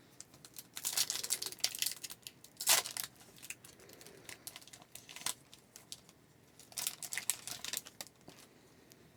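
Foil wrapper of a hockey card pack crinkling and being torn open, in several short bursts of crackle, the sharpest about two and a half seconds in.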